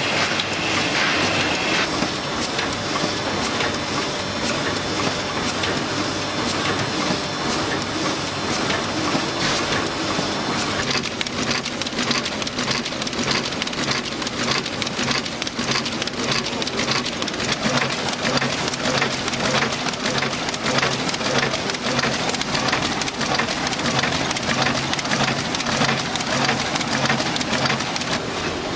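Bindery machine feeding paper signatures, running with a dense, rapid mechanical clatter. A high whine stops after about two seconds, and the ticking turns faster and sharper about eleven seconds in.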